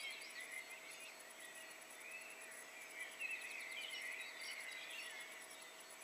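Faint dawn chorus of songbirds: several birds singing overlapping warbling phrases and quick trills.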